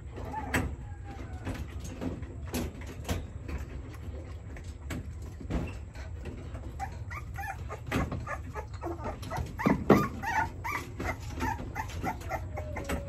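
Young puppy whimpering and yipping in short, high squeaks, most of them in the second half, mixed with scattered clicks and knocks.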